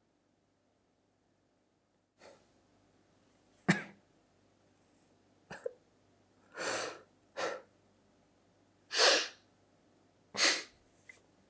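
After about two seconds of silence, a man lets out about seven short, breathy bursts, like stifled sobs and heavy exhales. They come irregularly, and the loudest are one sharp burst near the start and a longer one in the middle.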